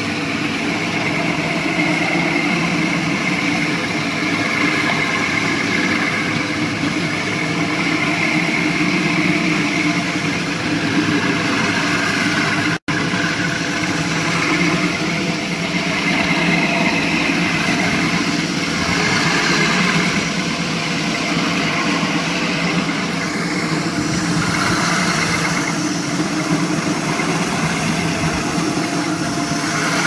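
Electric walk-behind floor grinder running steadily, its grinding head working dry over a concrete floor. The sound drops out for an instant about a third of the way in.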